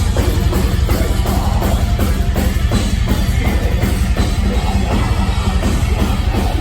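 Heavy metal music at full volume, driven by a drum kit with a fast, steady bass drum under distorted guitars.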